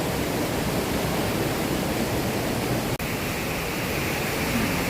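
Waterfall water rushing steadily. The sound drops out for an instant about three seconds in, and after that a higher hiss is added to the rush.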